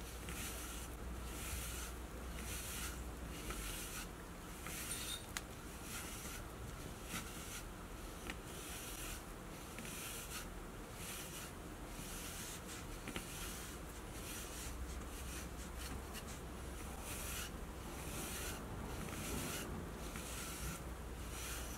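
Bristle brush stroking through a cat's fur, a soft swish repeated a little faster than once a second.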